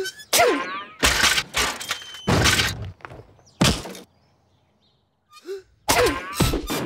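A run of heavy thuds and crashes, four in about three seconds. After a short silence, another loud burst comes near the end.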